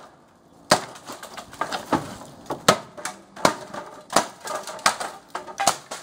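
Wooden planks and plywood being wrenched and broken apart by hand: after a brief lull, a run of irregular sharp cracks and knocks, with smaller clatters between them.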